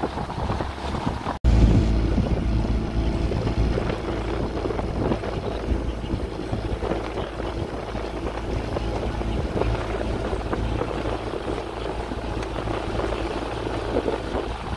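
Small boat's motor running steadily under way, with wind buffeting the microphone. A brief dropout about a second and a half in, after which the sound comes back louder.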